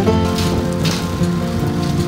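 Background music of held notes that change pitch every so often, over a light crackling patter.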